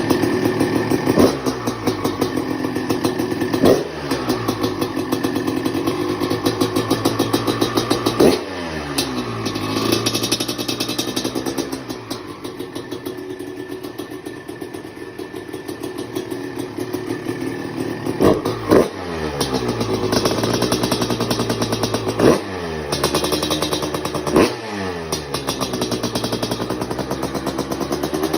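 1994 Honda CR250's single-cylinder two-stroke engine running on its first start after restoration, the throttle blipped about six times. Each rev falls back to idle, with a steadier, quieter idle stretch in the middle.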